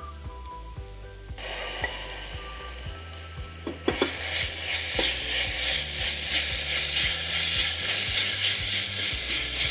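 Sliced onions frying in hot oil in a pan. The sizzle rises about a second in and grows much louder about four seconds in, with repeated stirring strokes through it.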